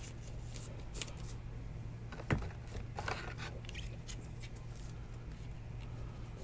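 Faint handling of a trading card and a clear hard plastic card holder: a few light plastic clicks and rustles, the clearest about two seconds in, over a low steady hum.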